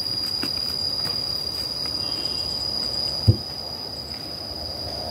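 Steady high-pitched insect drone over a quiet outdoor background, with one short dull knock about three seconds in.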